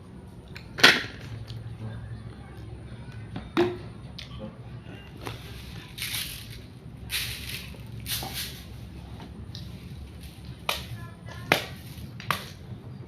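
Close-up eating sounds: a series of sharp crunches and mouth clicks, with softer chewing and smacking in between.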